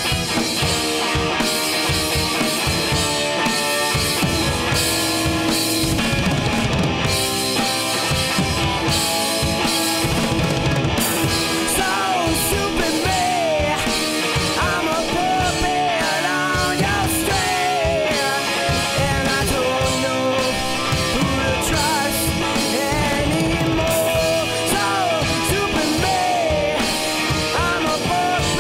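A rock band playing an instrumental break: a Rickenbacker electric guitar over a drum kit with crashing cymbals. From about a third of the way in, a lead line plays on top with bent, wavering notes.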